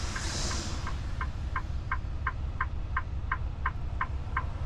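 A flasher relay ticks steadily, about three clicks a second, inside a semi-truck cab, over the low rumble of the truck's engine. A hiss fades out in the first half second.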